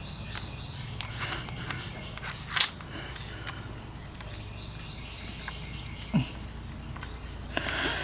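Faint clinks and knocks of hand work on a lawn tractor's starter mounting, with one sharper knock a couple of seconds in, over a steady low hum.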